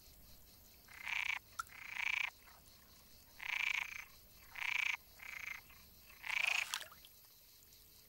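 Green frogs (water frogs) croaking: about six short croaks, each about half a second long, coming singly and in pairs with quiet gaps between.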